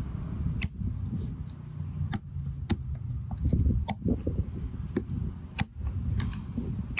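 A large kitchen knife chopping through a catfish's backbone onto a wooden cutting board: several sharp, irregular knocks about a second apart over a low rumble.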